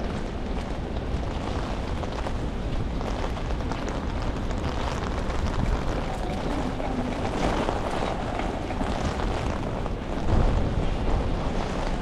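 Steady outdoor noise of rain falling on wet paving, with wind buffeting the microphone as a low rumble.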